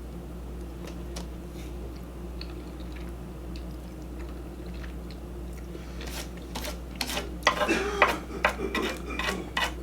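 Close-up eating sounds over a steady low hum: quiet at first, then from about six seconds in a quick run of wet clicks, smacks and scrapes as shrimp and ramen are chewed and picked from the dish.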